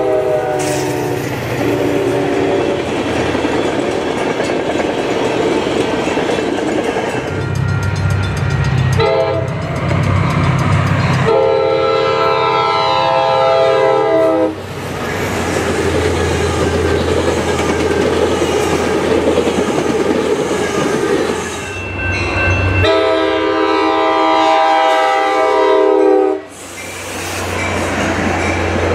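Altamont Corridor Express commuter trains passing: a diesel locomotive's multi-tone air horn sounds several times, two of them long blasts. Between the blasts the locomotive's engine hums and the wheels of bilevel passenger cars clatter over the rails.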